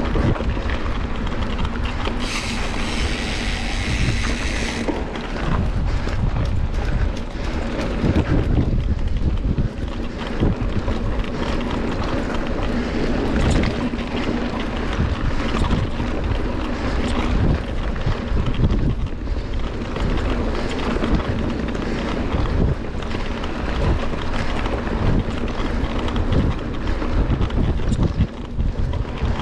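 Wind buffeting the microphone, a steady rumbling noise that rises and falls in gusts, with a brief burst of hiss about two seconds in.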